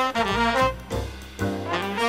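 Jazz-style background music led by horns, playing short phrases of moving notes.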